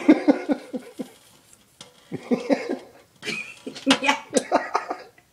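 A person laughing in three rapid runs of short "ha" pulses, with a brief "yeah" near the end.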